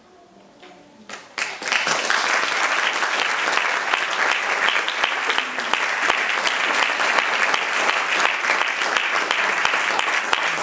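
Audience applauding: the clapping breaks out suddenly about a second and a half in and then holds steady, dense with many hands.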